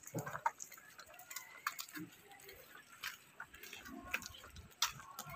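Footsteps on a concrete lane: light, irregular taps and clicks as people walk, with faint background noise.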